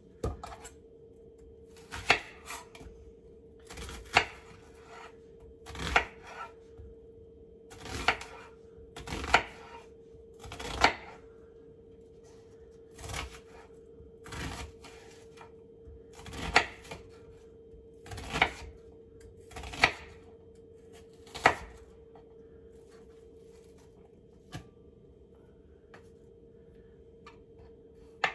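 Kitchen knife cutting through an onion on a cutting board, about a dozen slow cuts spaced a second or two apart, each ending in a sharp knock of the blade on the board; the cuts thin out after about twenty seconds. A faint steady hum runs underneath.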